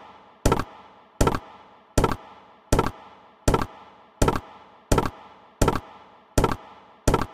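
Chicken Chase video slot's sound effects during turbo autoplay: a sharp knock-like thunk as the reels spin and stop, repeating evenly about every three-quarters of a second, each with a short fading tail.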